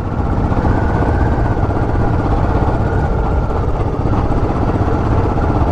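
Royal Enfield Classic 500 single-cylinder motorcycle engine running steadily.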